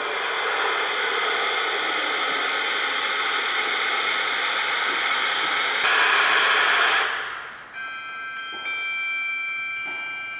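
Ambient music: a loud hissing wash over sustained tones, which swells shortly before dying away about seven seconds in and leaves ringing bell-like tones.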